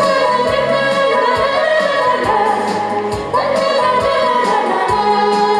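A woman singing a Korean trot song into a microphone through a PA, with long, sliding held notes over accompaniment that has a steady beat.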